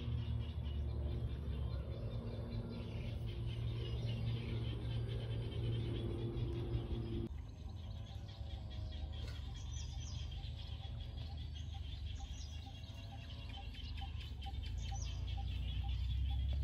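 A steady motor hum with a few constant tones, which cuts off abruptly about seven seconds in. After that, birds chirp and call over a low rumble.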